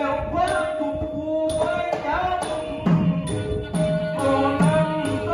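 A male voice chants southern Thai nang talung verse through a microphone, backed by a Nora music ensemble. A held steady tone runs beneath the voice, and a sharp metallic beat is struck about twice a second.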